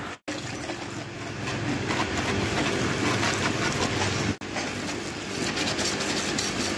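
Bike-wash pressure washer running steadily, its pump humming under the hiss of water spraying onto a motorcycle. The sound drops out for an instant twice.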